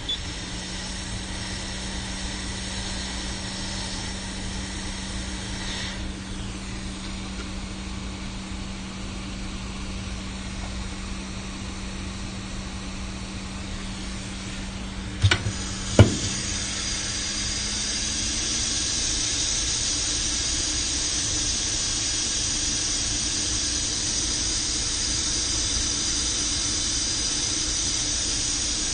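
Hot air rework station blowing steadily: a fan hum under a rushing hiss of air. About fifteen seconds in come two sharp clicks, after which the airflow grows louder and its hum rises slightly.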